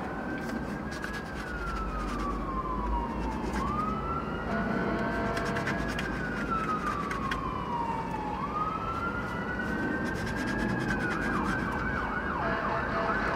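Emergency vehicle siren in a slow wail, rising and falling about every four to five seconds, switching to a rapid yelp near the end.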